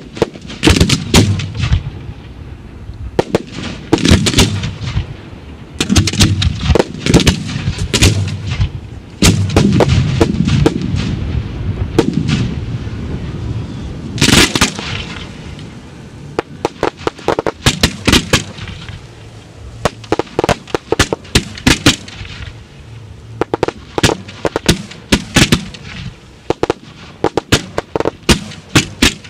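Aerial firework shells fired from mortars and bursting in a continuous barrage. Booms with a low rumble dominate the first half, and quicker clusters of sharp cracks take over in the second half.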